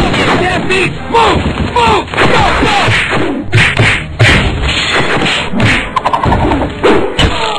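Cartoon fight sound effects: a rapid, irregular string of blows and impacts, with short falling-pitch sounds mixed among them.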